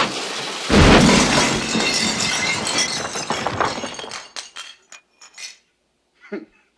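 A sudden crash of hard pieces, about a second in, with a glassy clinking clatter that fades over a few seconds into scattered single clinks.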